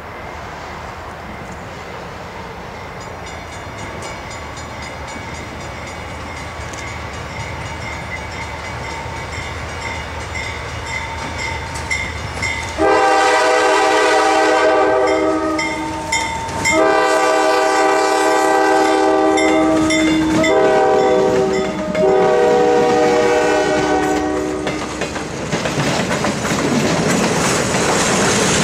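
GE C39-8 diesel locomotive approaching, its engine rumble slowly growing louder. About halfway through it sounds its five-chime K5LA air horn in two long blasts, a short one and a long one: the grade-crossing signal. Near the end the passenger coaches roll past with steady wheel and rail noise.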